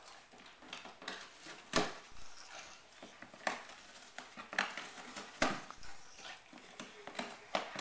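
Boxer dog chewing and tearing at a cardboard box: irregular crackles and snaps of cardboard ripping and crunching in its teeth.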